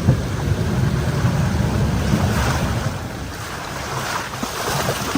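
Steady low rumble of a heavy machine's engine running, with an even rushing noise over it like water or wind.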